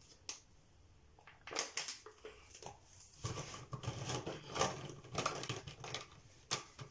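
Plastic markers clicking and clattering against each other as they are handled and picked through in a container, in quick irregular clicks that become busier after about a second and a half.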